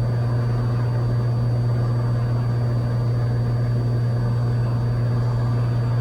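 Cessna 182's engine and propeller running steadily in level cruise, a constant low drone with no change in pitch.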